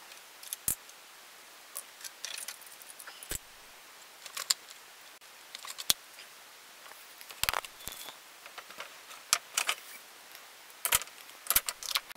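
Small metal hand tools (screwdrivers, an Allen key) being picked up and gathered off a wooden workbench: a string of sharp separate clicks and clinks with light rustling between them, the clinks coming thickest near the end.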